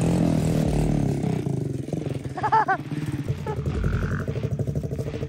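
Dirt bike engine running: the revs drop over the first couple of seconds, then it settles into an even idle.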